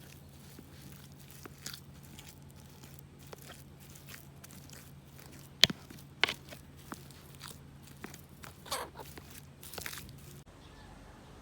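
Scattered clicks and crunching handling sounds, the sharpest click about five and a half seconds in. A low steady hum runs underneath and cuts off abruptly near the end.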